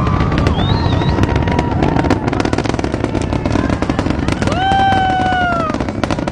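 Rocket engine roar with dense, rapid crackling, with a voice whooping over it about four and a half seconds in.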